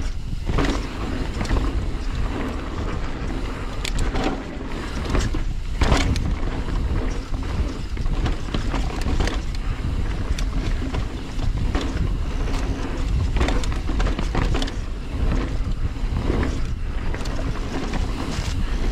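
Mountain bike descending a rough dirt trail: steady wind rush on the camera microphone and tyre rumble, broken by sharp knocks and clatters of the bike hitting rocks and roots several times.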